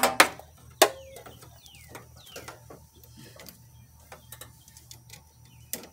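Sharp clicks and knocks of a handheld battery load tester and its clamp leads being handled, loudest right at the start and again about a second in. In the background there are faint, quick falling bird chirps.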